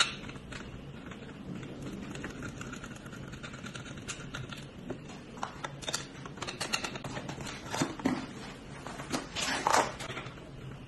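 Hand-work on a treadmill with tools: irregular clicks, knocks and rattles of metal parts and tools being handled and screwed. A sharp knock comes right at the start, and a flurry of louder knocks comes near the end.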